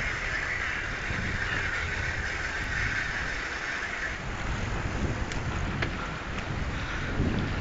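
River in flood, its swollen water rushing past in a steady hiss, with wind buffeting the microphone in uneven low rumbles.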